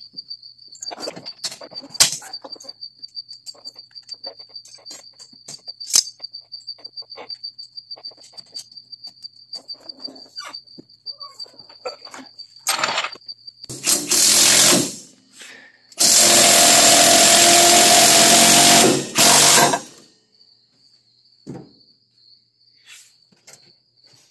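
A cricket trills steadily under scattered clicks and knocks of work on metal. About 14 seconds in a power tool blasts briefly, then runs loudly for about four seconds before stopping, and the cricket is heard again afterwards.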